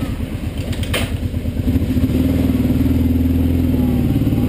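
ATV engine running at low speed: it runs lower and choppier at first, then picks up steadily about a second and a half in, with a sharp clack about a second in.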